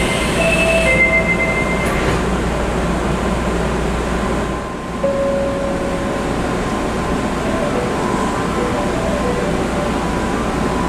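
Osaka Metro 30000A series train doors closing: the two-note door chime repeats and stops about a second in, and the doors shut with a click near two seconds. Then comes steady train interior noise, and after a cut about five seconds in, lower chime tones sound as the doors stand open at the next stop.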